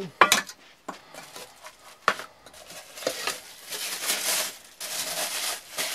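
Camping cook-set pots and pans knocking and clinking together as they are handled, a few sharp knocks in the first two seconds, then a plastic bag crinkling and rustling as a wrapped pot is lifted out.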